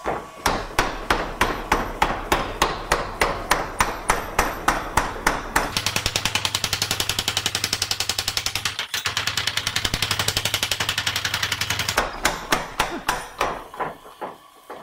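Beaudry Peerless mechanical power hammer striking a one-inch board on its anvil with a steady train of blows, about three a second. About six seconds in it speeds up to a fast rattle of blows, then slows again near twelve seconds and stops shortly before the end. Its ram has been adjusted to travel further down, so that it now reaches the thin stock.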